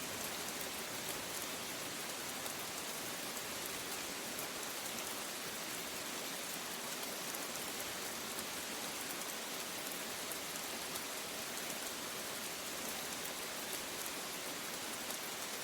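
Steady rain falling, an even hiss with faint ticks of individual drops.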